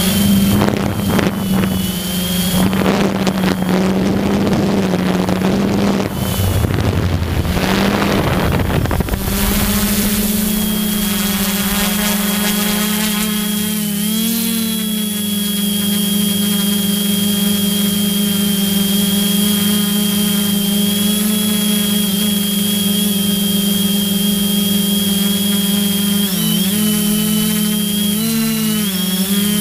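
Electric motors and propellers of an FPV drone heard from on board: a steady hum with a thin high whine above it. Heavy wind rushes over the microphone for about the first nine seconds, and near the end the pitch wavers as the motors change speed.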